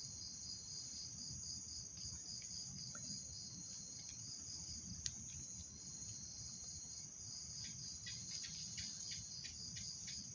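Night insects, crickets, chirping steadily: a continuous high trill with an even pulsing chirp about three times a second. A single sharp click comes about five seconds in, and a few faint clicks follow near the end.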